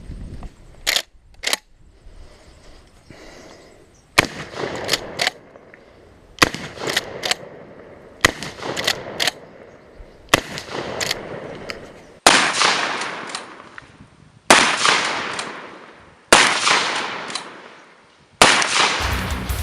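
Adler A110 lever-action 12 gauge shotgun fired again and again, a shot about every two seconds, with small clicks between the earlier shots. Each of the last four shots rings out and fades over more than a second.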